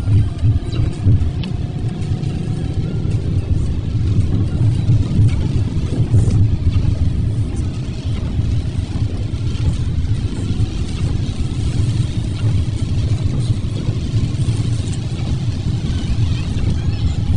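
Steady road and tyre noise of a moving car, heard inside the cabin: a deep rumble with a hiss from tyres on a rain-wet road.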